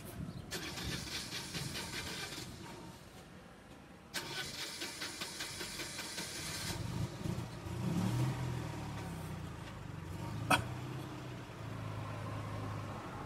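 A vehicle engine being started: two bursts of rapid cranking, then it catches about seven seconds in, revs briefly and settles to a steady idle. One sharp click comes near the end.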